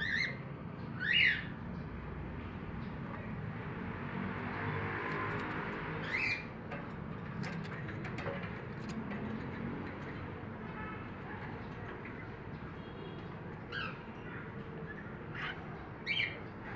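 Cockatiel calls: about six short, sharp rising calls spread through the stretch, the loudest about a second in and near the end, over a steady background hiss.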